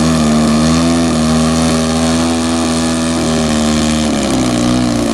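Aerobatic RC airplane's engine and propeller running at hovering throttle as the plane hangs nose-up on its prop, the pitch wavering slightly with small throttle corrections, then dropping about four seconds in as the throttle comes back.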